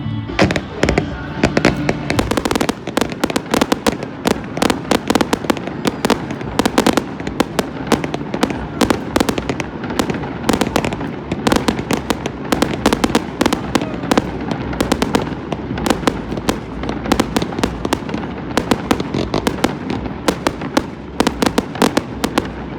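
Fireworks display: a continuous barrage of sharp bangs and cracks, several a second, with no let-up.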